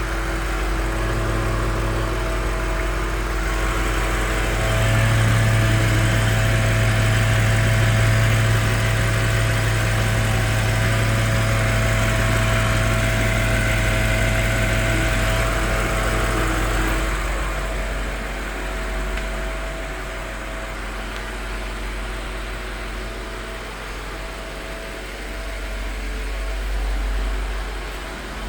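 2022 BMW X6M Competition's twin-turbo V8 idling at full operating temperature, a steady low hum with a steady tone above it: the strange noise that appears only once the engine is warm, which the owner cannot place and hears mostly at the front. About 17 seconds in the low hum drops away, leaving a quieter steady whir.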